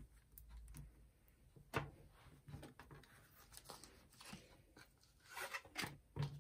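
Tarot and oracle cards being handled: faint scattered rustles and slides, with a few sharper taps, the clearest about two seconds in and a couple near the end.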